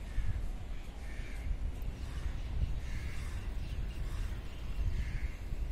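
A crow cawing several times, about every two seconds, over a steady low rumble.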